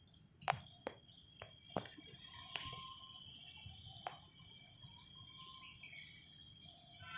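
A handful of soft, sharp clicks from a phone being handled and tapped, mostly in the first few seconds, over faint room tone with a steady high-pitched whine.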